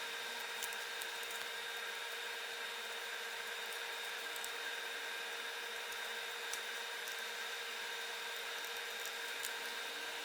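Steady whir of a small fan or blower, holding one pitch, with a few faint clicks over it.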